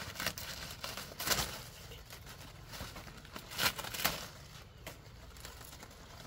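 Dry leaf thatch on a small hut roof crackling and rustling as it is handled and pressed down, with several louder crunches, the strongest about a second in and again between three and a half and four seconds.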